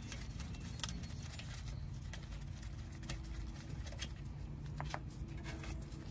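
Scattered light clicks and small metallic ticks as a gloved hand spins a loosened 17 mm caliper bolt out by hand on a front brake caliper, over a steady low background rumble.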